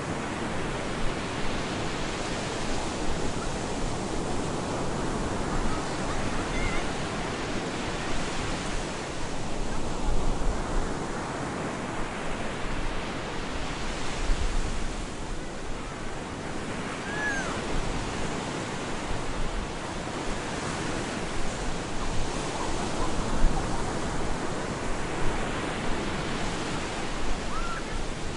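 Stormy ocean surf breaking on a beach: a dense rush of waves that swells and falls back several times, a surge every five or six seconds.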